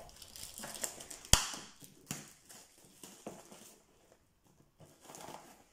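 Plastic wrap being cut and peeled off a cardboard box: faint rustling and crinkling, with a sharp snap about a second in and a smaller click near two seconds.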